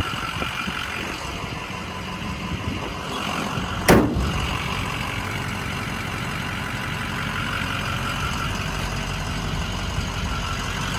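Ford 6.0-litre Power Stroke V8 turbo-diesel idling steadily, with a single sharp knock about four seconds in.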